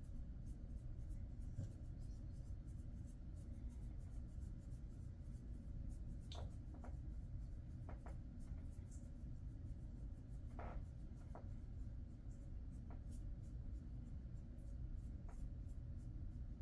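Fingers rubbing and scratching through a Jindo dog's coat during a massage, a faint scratchy rustle with small ticks and a few clearer strokes, over a low steady hum.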